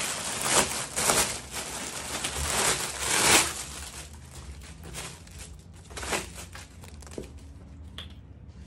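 Crinkling and rustling of packaging as a straw sun hat is unwrapped, loudest about three seconds in, then dying down to a few light handling sounds.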